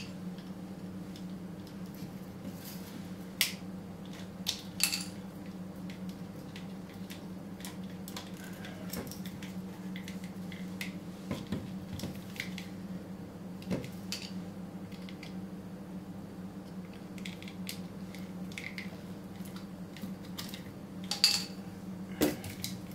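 Scattered clicks and knocks of hands working on small lead-acid UPS batteries: tab connectors being pulled off the terminals, plastic cases separated and set down. A steady low hum runs underneath.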